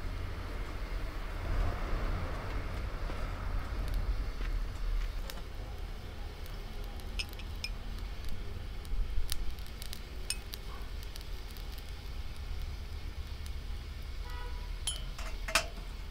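Scattered light clinks and taps of metal cutlery against dishes, a few ringing briefly, over a steady low rumble.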